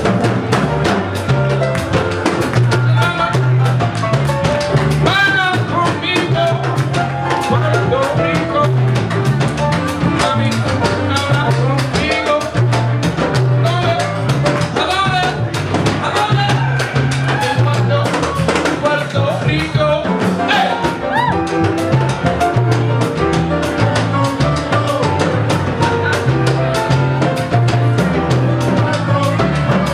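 Live music from a small band: grand piano, upright bass and drum kit playing together over a steady bass line.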